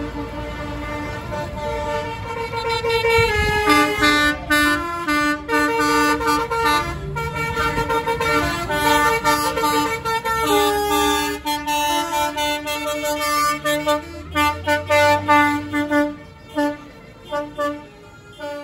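A truck's musical air horn playing a tune of short stepped notes over the low running of the diesel engine. The notes come in quicker, choppier bursts near the end and stop abruptly.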